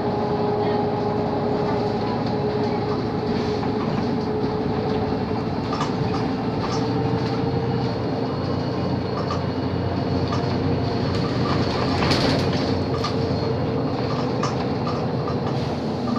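Interior of a Mercedes-Benz O 530 Citaro city bus under way: the drivetrain runs with a steady whine over a dense rumble of the tyres on cobblestones, with many small rattles from the bodywork.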